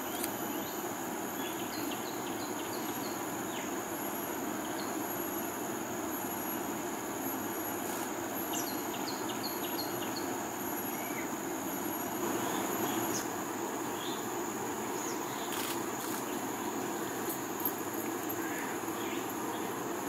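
Steady high buzzing of insects over a low, even background rumble. Twice, short runs of four or five quick, high chirping notes from small birds break in.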